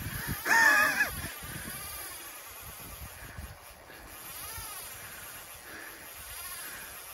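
A short drawn-out vocal exclamation about half a second in. Under it runs a steady rushing noise of river water and wind.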